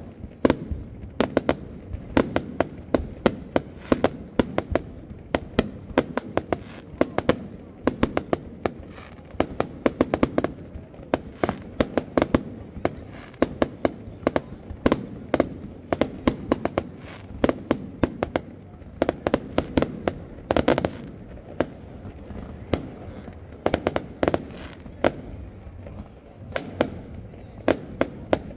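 Fireworks display: a rapid, irregular barrage of bangs and cracks, several a second, with some longer crackling bursts, over a steady low rumble.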